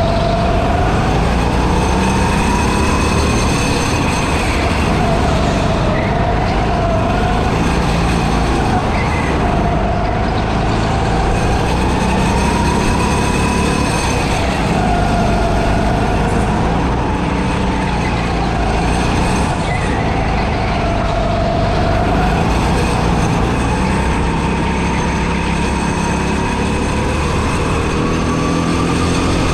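Go-kart running at speed on a track. The motor's pitch rises and falls every few seconds as the kart speeds up and slows for corners.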